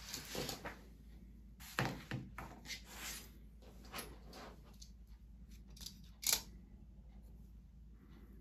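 Tabletop handling of a paper instruction booklet and small metal sewing-machine accessories. There is a knock near two seconds in, a stretch of rustling, then scattered light clicks; the sharpest click comes just after six seconds.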